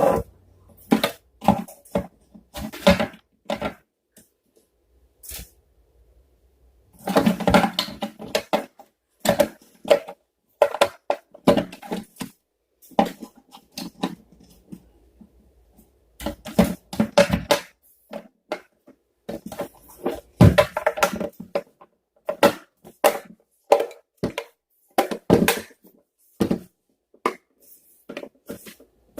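Irregular clatter, clicks and knocks of hard parts being handled and set down on a work surface, coming in bursts with short quiet gaps between.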